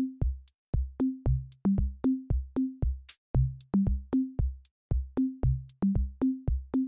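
Background music: an electronic drum-machine beat of sharp clicks and low kick thumps, about three a second, with short low notes.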